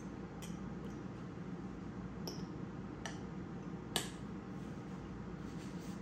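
A fork clinking and scraping against a bowl a few times while someone eats, the sharpest clink about four seconds in, over a steady low room hum.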